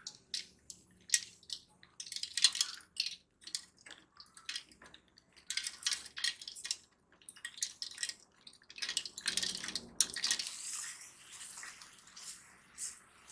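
Slime being mixed and squished by hand: irregular wet clicks and squelches, coming in quick clusters, most continuous about nine to eleven seconds in.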